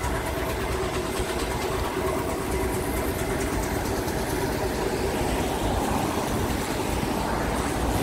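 Road traffic: a vehicle engine humming steadily over a wash of outdoor noise.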